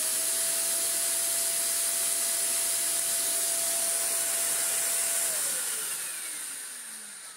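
Shark Speed Lift-Away NV680 upright vacuum cleaner's suction motor running with a steady whine and rushing air hiss. The brush roll is not turning. About five seconds in it is switched off, and the whine falls in pitch and fades as the motor spins down.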